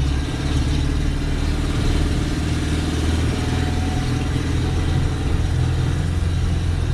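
Fiat 600's rear-mounted four-cylinder engine running steadily while the car is driven, heard from inside the small cabin along with road noise.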